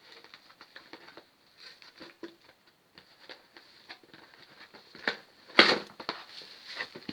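Cardboard box being handled and opened: scattered light clicks and rustles, with a louder scrape or knock about five and a half seconds in.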